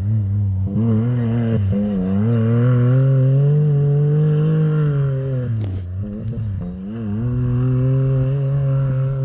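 Off-road race UTV's engine running hard, its pitch rising and falling with the throttle. The pitch dips sharply about six seconds in, then picks up and holds steadier.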